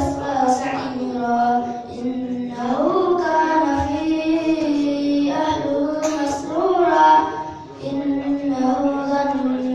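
A child's voice reciting the Qur'an in the melodic qiroah style, drawing out long, ornamented notes that glide up and waver, with a short pause for breath near the end.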